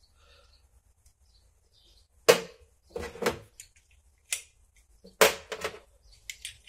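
Sharp knocks and clicks of a digital caliper and small tools being picked up, handled and set down on a metal workbench, a few separate strikes with the loudest about two seconds in and again about five seconds in.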